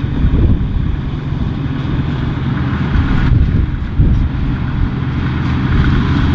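Claas Dominator 76 combine harvester's engine running steadily as it works the field, a constant low hum with some wind on the microphone.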